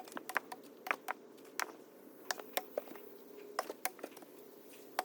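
Cut firewood rounds knocking and clacking against each other as they are rolled aside: about a dozen sharp, irregular knocks of wood on wood.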